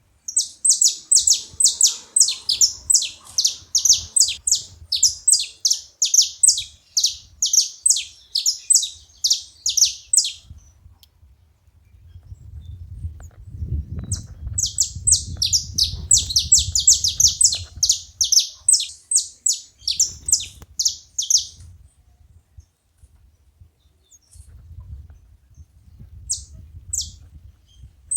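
Saffron finches chirping and singing together: long runs of sharp, high notes about three a second, in two long stretches with a pause between and a few scattered notes near the end. A faint low rumble sits underneath, strongest in the middle.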